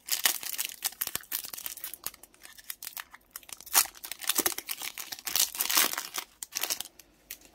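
Pokémon Shining Fates booster pack's foil wrapper being torn open and crinkled by hand: a dense, uneven stream of sharp crackles and rips, loudest a little under four seconds in.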